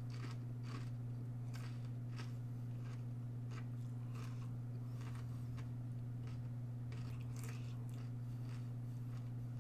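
Someone chewing a crumb-coated vegan chicken-free southern fried strip: faint, irregular crunches, about one every half second to a second, over a steady low hum.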